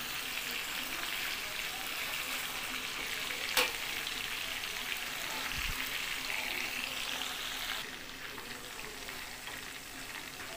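Marinated mutton chops sizzling steadily as they fry in hot oil in a kadhai, with a spatula stirring them and one sharp knock about three and a half seconds in. The sizzle eases slightly about three-quarters of the way through.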